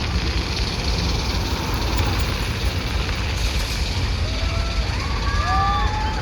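Steady outdoor crowd noise with a low rumble under it. From about four and a half seconds in, several short rising whoops or whistles overlap.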